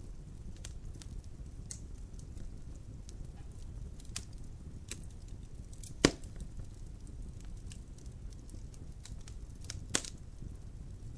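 Fire burning in a fireplace, crackling steadily over a low rumble, with a loud sharp pop about six seconds in and another near the end.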